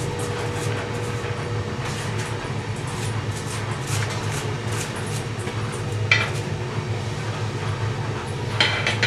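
Metal tools and parts clinking and tapping during hand work, with a sharper ringing clink about six seconds in and a few more near the end, over a steady low hum.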